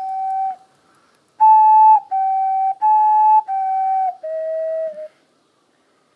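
A short flute-like tune of six clear, held notes, swinging between two pitches and closing on a lower note about five seconds in.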